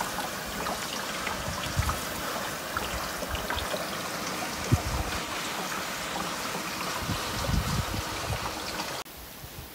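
Water pouring in a steady stream into a container, with a few soft knocks. The pouring sound cuts off abruptly near the end.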